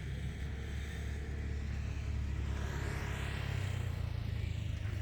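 A motor vehicle passing by, swelling and fading about three seconds in, over a steady low rumble.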